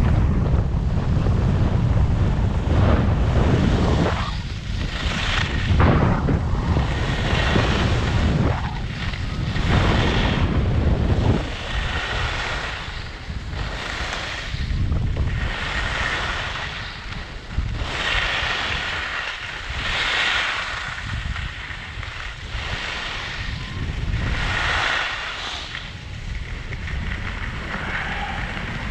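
Wind rushing over a GoPro's microphone during a fast ski descent. The hiss of skis carving on freshly groomed snow swells with each turn, about one turn every two seconds.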